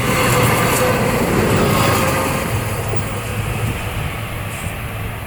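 A passing train's rumble and wheel noise, fading steadily as it moves away.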